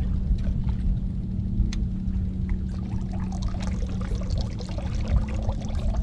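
Water lapping and splashing against the hull of a fiberglass bass boat, with small irregular splashes over a steady low hum.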